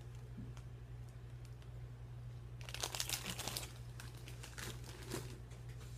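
Crunching of a puffed potato chip being bitten and chewed: a dense run of crisp crackles about halfway through, then a few scattered ones, over a steady low hum.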